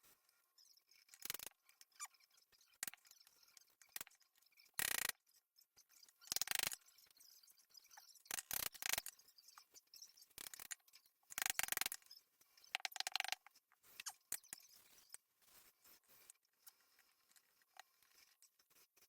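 Work on a wooden magazine rack: scattered light knocks and clicks, with several short rasping, scraping strokes, the loudest about five seconds in and between about eleven and thirteen seconds in.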